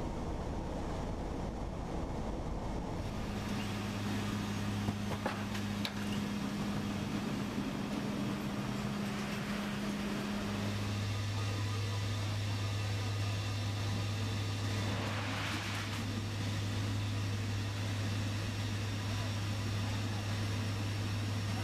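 Steady drone of aircraft engines and rushing air inside a military transport's cargo hold with the rear ramp open. A low hum comes in about three seconds in and changes pitch about ten seconds in.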